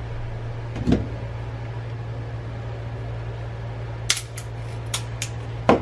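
Pliers working small plastic fluorescent-tube lampholders apart: a dull knock about a second in, then a run of sharp clicks and a louder knock near the end as the plastic is gripped and cracked, over a steady low hum.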